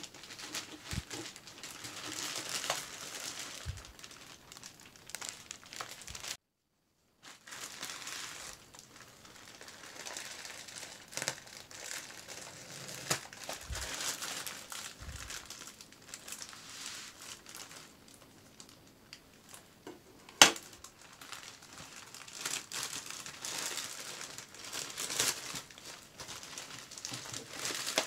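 Plastic courier mailer bag crinkling and rustling as gloved hands handle it and tear it open. About two-thirds of the way through there is one sharp click, the loudest sound. The sound cuts out briefly about six seconds in.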